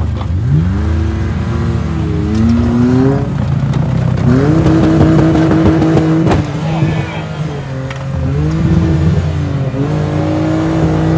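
Demolition-derby car engines revving hard and easing off again and again, their pitch rising and falling. About six seconds in comes one sharp crash of car hitting car.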